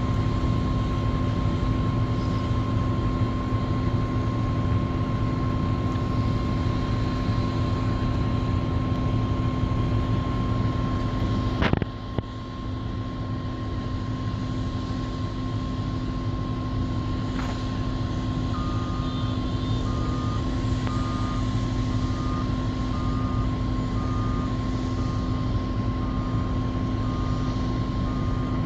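Doosan 480 excavator running steadily with a constant engine and hydraulic drone and a few held tones. There is a sharp click about twelve seconds in, after which it runs a little quieter. From about two-thirds of the way through, a short high beep repeats about once a second.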